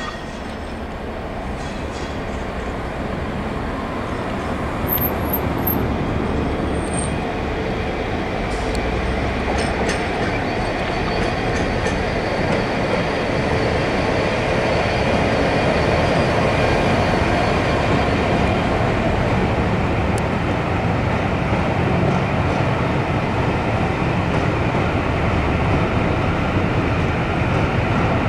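GBRf Class 69 diesel locomotive hauling a rake of passenger coaches, its engine and wheels growing steadily louder as it approaches and passes close by. The coaches then roll past on the rails, with a faint wheel squeal.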